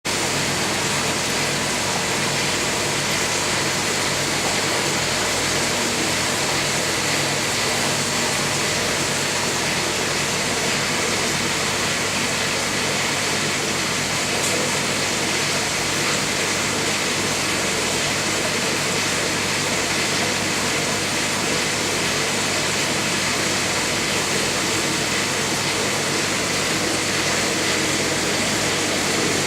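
Steady hiss with a low machine hum, unchanging throughout.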